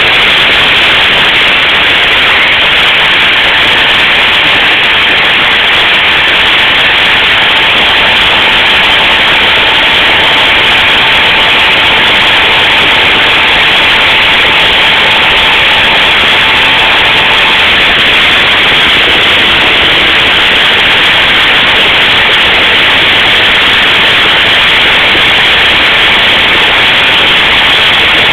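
Router spindle of a CNC milling machine running steadily while its bit mills a copper-clad circuit board: a loud, unbroken whine and hiss of the motor and cutting.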